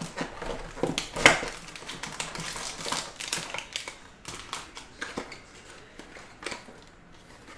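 Hands opening a cardboard trading-card box: the inner box sliding and rubbing in its sleeve, with a sharp knock about a second in, then scattered clicks and scrapes as the foil-wrapped pack is lifted out.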